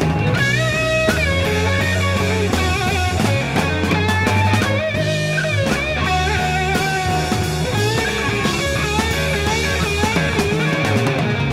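Live rock band instrumental: an electric guitar solo of bent, wavering notes, played partly with the teeth, over bass and drums.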